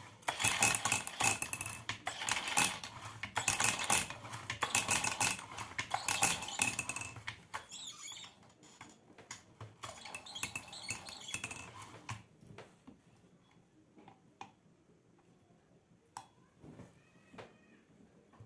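Small metal tools and parts clattering and clinking, dense and continuous for the first seven seconds or so, then only a few separate light taps and clicks.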